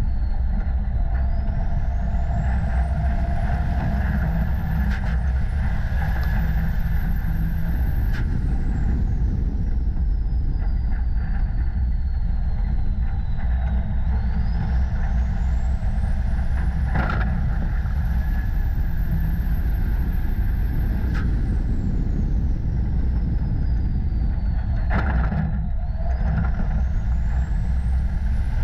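Racing semi truck's diesel engine running hard, heard from a camera on the cab: a heavy, steady rumble with a high turbo whistle that climbs in pitch under throttle and falls away when the driver lifts, rising and falling several times around the laps.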